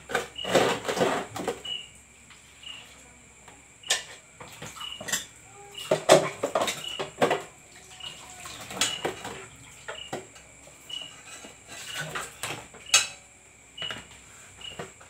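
Dishes being washed by hand: plates, bowls and metal pans knocking and clattering, with splashes of water poured from a plastic dipper. Crickets chirp steadily in the background.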